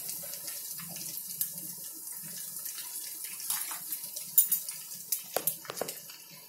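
Tempering of cashews, red chillies, cumin and pepper sizzling in hot ghee and oil in a kadai, with a steady hiss. A steel ladle stirs it, scraping and knocking against the pan several times in the second half.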